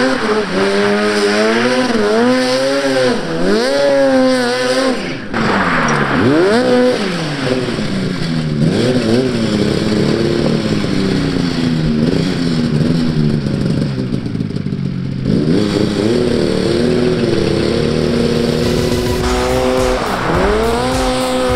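Drift trike's 600cc two-stroke snowmobile engine revving hard, its pitch rising and falling over and over as the rider works the throttle through a slide, with a brief drop about five seconds in.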